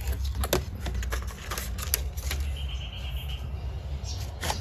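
Scattered light clicks and rattles of a plastic container of solder seal wire connectors being handled, over a steady low hum.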